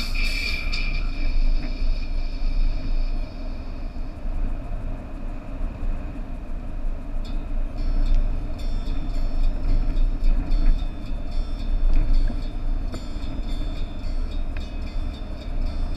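A vehicle driving on a wet road: steady low engine and road rumble with tyre hiss. Music fades out in the first second, and short high-pitched ticks join about halfway.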